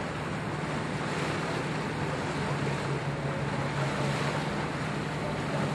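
Sailboat under way: a steady rush of wind and water over a low, steady engine hum.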